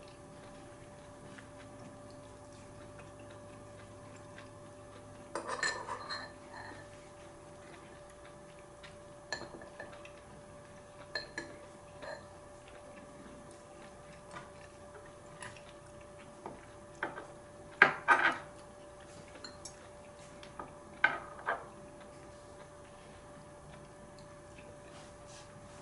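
Metal spoon and chopsticks clinking and scraping against a ceramic bowl during eating: scattered light clinks, with the loudest pair about two-thirds of the way through.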